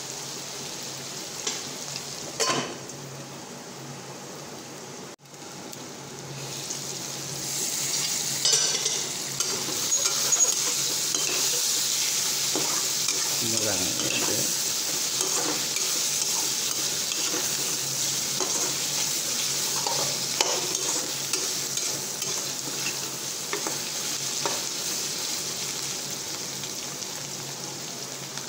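Pork frying in a metal kadai, sizzling while a spatula stirs and scrapes the pan. A single knock comes about two and a half seconds in, and the sizzle grows louder about eight seconds in.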